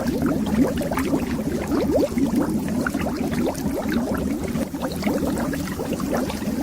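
Water bubbling underwater: a dense, continuous stream of small bubbles, each a short rising blip, over a low rumble.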